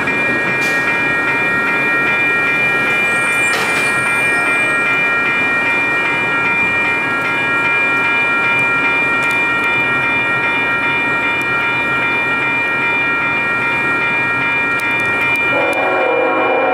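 Train's air horn holding a multi-note chord without a break over the rumble and rail noise of the train. Near the end a lower-pitched chord joins in.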